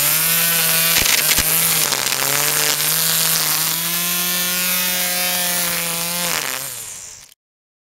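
Corded electric string trimmer running and cutting grass: a steady motor whine over the hiss of the nylon line thrashing through the grass, its pitch dipping briefly about two seconds in. Near the end the motor winds down with falling pitch and the sound cuts off.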